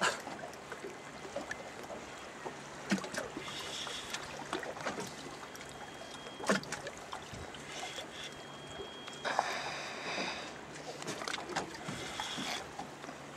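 A boat's engine idling with a low steady hum on the water, with scattered knocks and clicks and a few short high buzzing bursts, the strongest about two-thirds of the way through.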